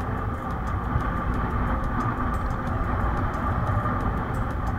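Motorcycle engine running steadily at low speed on a dusty dirt road, mixed with tyre and wind noise.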